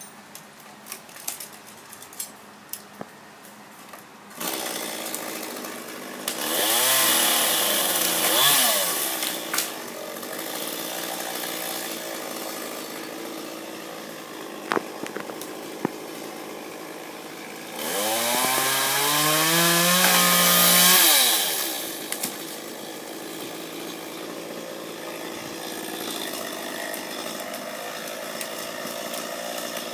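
Gas chainsaw: a few light clicks, then the saw's engine comes in about four seconds in and runs at idle. It is revved up twice, its pitch climbing each time, with the second run longer and louder, before dropping back to idle.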